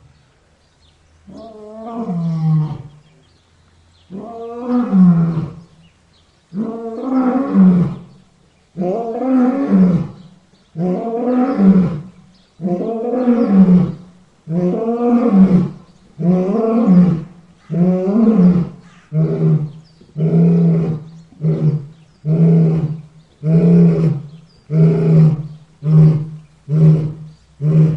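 Lion roaring bout: a series of about twenty deep roars. The first few are long and spaced a couple of seconds apart, and they turn into shorter, quicker grunts, about one a second by the end.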